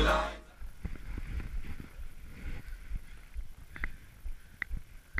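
Background music fades out at the start, then skis run over packed snow, faint and muffled through a GoPro housing, with low uneven thumps and a few short, high squeaks near the end.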